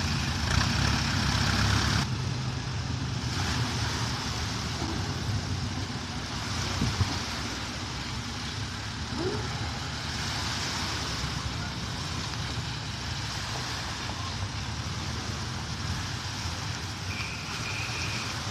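Engine running steadily with a low drone; it is louder for the first two seconds, then drops a little and holds.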